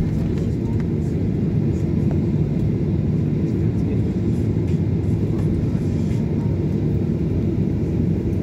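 Steady low rumble inside the cabin of a jet airliner taxiing at low engine power, with a few faint ticks.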